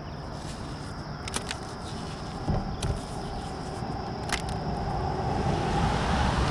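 A road vehicle approaching, its engine and tyre noise swelling steadily over the second half, with a few sharp clicks over it.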